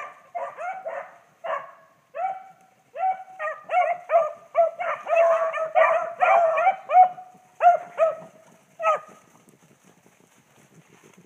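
Several beagles baying while running a rabbit: short, falling bays from more than one dog, overlapping thickest in the middle and dying away about nine seconds in.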